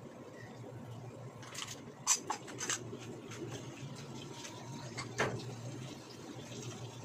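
Ingredients frying quietly in a nonstick pan while a wooden spatula stirs and knocks against it, with several sharp clacks about two seconds in and one more near five seconds, over a low steady hum.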